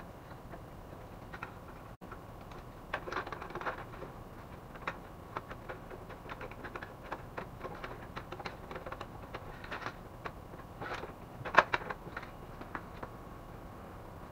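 Irregular clicks, taps and rattles of plastic and metal parts being handled and fitted into an HP LaserJet M401dn laser printer during reassembly, with one louder knock near the end.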